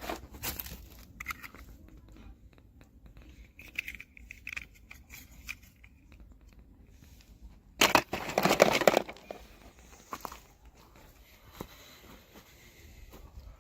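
Toy packaging being handled and opened, with small crinkles and clicks and one louder tear lasting about a second and a half, about eight seconds in.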